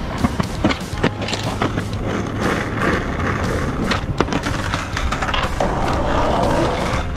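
Skateboard wheels rolling on rough pavement and concrete, broken by many sharp wooden clacks from the tail popping and the board landing.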